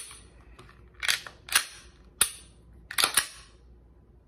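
Glock 19X 9mm pistol being handled: about six sharp metallic clicks and clacks from its action, some in quick pairs, with the pistol empty.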